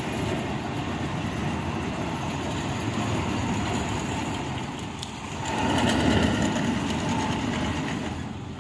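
Tractor diesel engines running with a tractor-driven Balajindra soil loader working, scooping earth and throwing it into a moving trolley: a steady dense mechanical noise that swells louder for a second or two a little past halfway.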